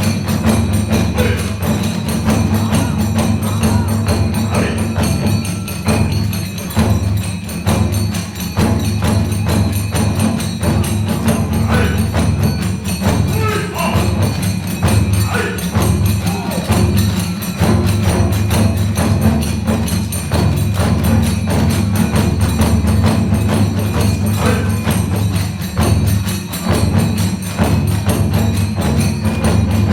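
Live kagura hayashi: big and small taiko drums beating a fast, steady rhythm, tebyōshi hand cymbals clashing with them, and a bamboo fue flute playing a wavering melody over the top.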